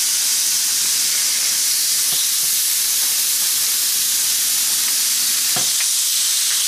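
Pieces of seasoned pork loin sizzling steadily on a hot cast-iron grill pan, with a couple of faint knocks about two seconds in and near the end as pieces are moved on the pan.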